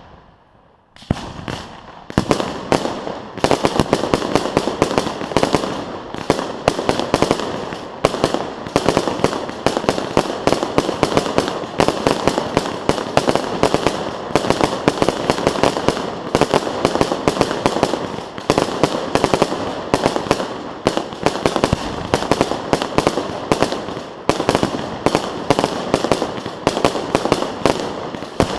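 Fireworks display: a rapid barrage of bangs and crackles that starts about a second in, thickens within a few seconds and keeps on without a break.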